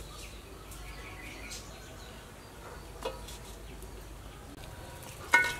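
An aluminium cooking pot and a steel wok clanking on a charcoal stove: a light clank about three seconds in, then a louder ringing clank near the end. Insects buzz faintly throughout.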